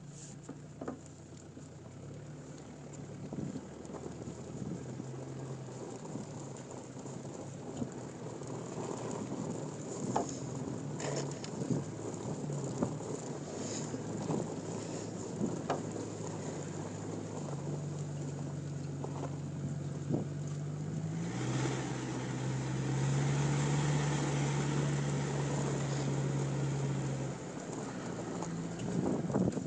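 Mitsubishi Pajero's engine pulling a snowboarder on a tow rope through snow, its revs holding steady and shifting up and down in steps. A steady hiss of wind and snow runs under it, with scattered knocks, and the hiss grows louder and brighter about two-thirds of the way through.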